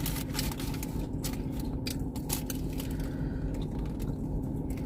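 Steady low rumble inside a car, with scattered sharp crackles and clicks from eating and handling food.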